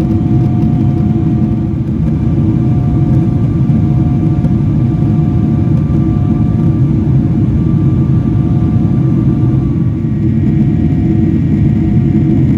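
Cabin noise inside a Boeing 777-300ER from its two General Electric GE90-115B engines and airflow. It is a steady deep rumble with a few faint steady whining tones above it.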